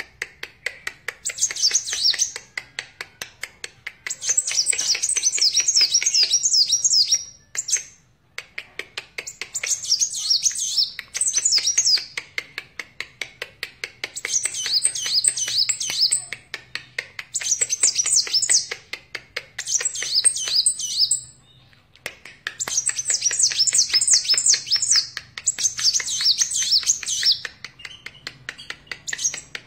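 Kolibri wulung sunbird singing persistently in long runs of rapid, high twittering notes, phrase after phrase with only short breaks, twice falling quiet for a moment.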